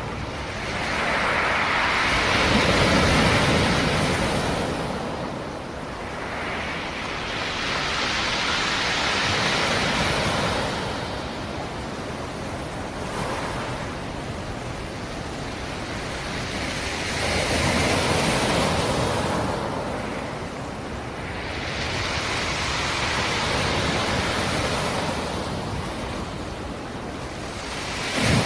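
Black Sea surf: waves rolling in and washing back in slow surges, four swells about every six to eight seconds over a steady rush of water, with a short louder splash near the end.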